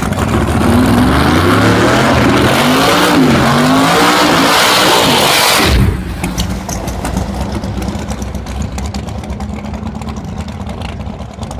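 Pro Nitrous drag car's V8 engine held at high revs through a burnout, its pitch wavering up and down as the rear slicks spin. About six seconds in the throttle is cut suddenly and it drops to a loose, lumpy idle with scattered pops.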